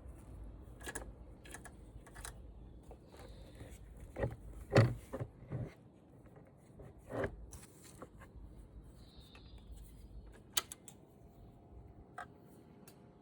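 Scattered handling noises: a dozen or so light clicks and knocks with some rubbing, the loudest knock about five seconds in.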